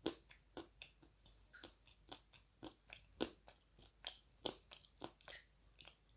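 Close-up crunching as someone bites and chews lumps of dry edible clay. Sharp, irregular crunches come about two a second, some loud and some soft.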